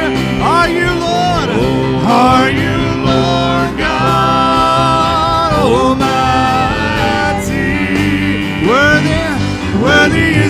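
Live worship band playing a praise song: a woman singing lead in long held notes that glide between pitches, over acoustic guitar and keyboard with sustained low notes.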